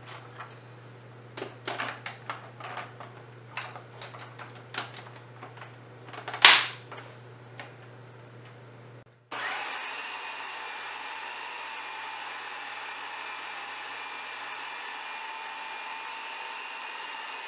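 Clicks and knocks of a food processor being handled, with one sharp snap about six seconds in. Then, about nine seconds in, the food processor motor starts and runs steadily, mixing butter, cream cheese and powdered sugar into frosting.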